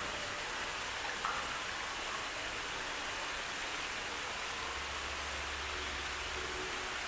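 Indoor mall fountain's single vertical jet splashing back into a shallow pool: a steady hiss of falling water. A brief click about a second in.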